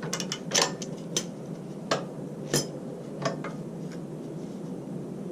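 Ratchet wrench working a motorcycle's center-stand mounting bolt loose: single sharp metallic clicks at uneven intervals, about one every half second, dying away after about four seconds.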